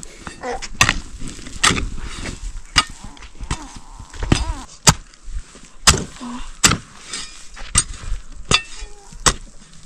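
Repeated sharp strikes of a hand hoe chopping into the soil while planting potatoes, about one a second at an uneven pace.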